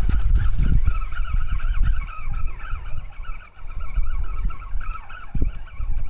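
Wind and handling on a handheld camera's microphone: a low, gusty rumble that eases off after about two seconds, over a steady, wavering higher sound.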